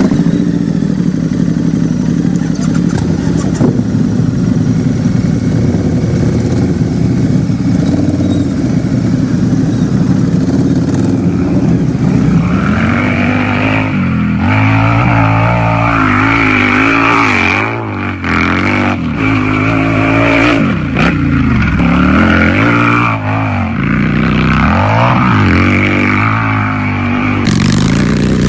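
Harley-Davidson V-twin motorcycle engine running at a steady speed for about the first twelve seconds. After that it is revved up and down again and again, its pitch rising and falling with each rev.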